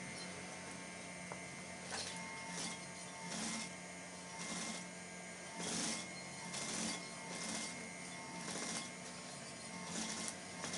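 Industrial sewing machine stitching through quilted vinyl and foam, its motor humming steadily while the needle runs in a series of short spurts.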